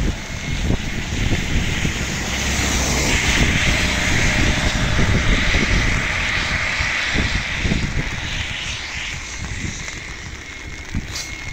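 Wind rushing and buffeting over the microphone with tyre hiss on a rain-soaked road while riding a motorcycle. The noise grows quieter in the last few seconds as the bike slows.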